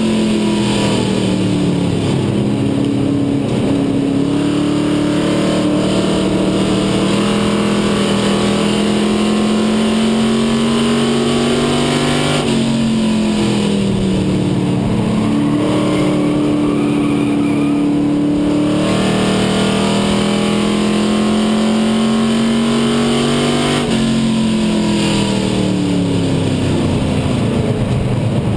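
Race car engine heard from inside the cockpit at racing speed, its pitch dropping sharply as the driver lifts for a turn and then climbing steadily back on the throttle, about every twelve seconds.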